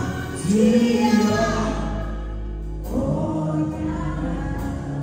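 Live gospel singing: a woman's voice singing held, gliding notes into a microphone over instrumental accompaniment with a low bass line.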